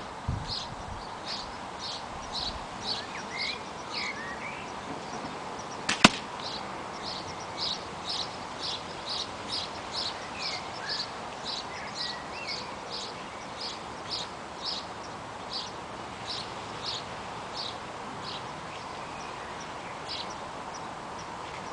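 A single sharp crack of an airsoft rifle firing one BB about six seconds in. Throughout, a high short chirp repeats about twice a second, with a few brief gliding calls.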